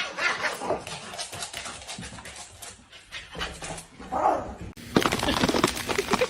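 A dog panting and giving short whimpering calls, with a louder yelp about four seconds in. Near the end comes a run of rapid clicking.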